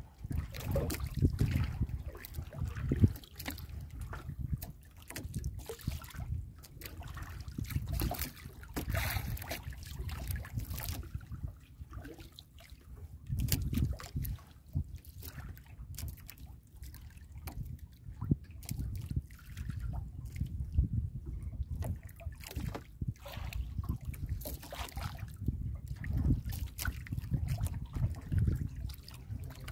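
Sea water lapping and sloshing against the hull of a small outrigger boat on choppy water, over an uneven low rumble.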